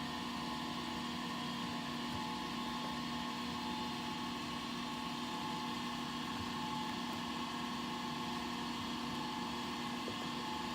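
Steady machine hum with a low tone and a higher whine over a faint hiss, unchanging throughout: the SCM T130 CNC machine and shop electrics running idle.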